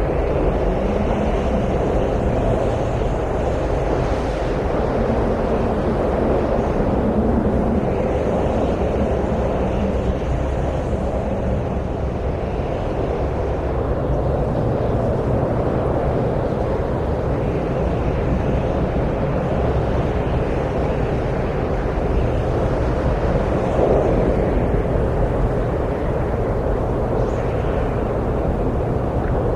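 Wind blowing steadily, a continuous low rushing noise without pauses.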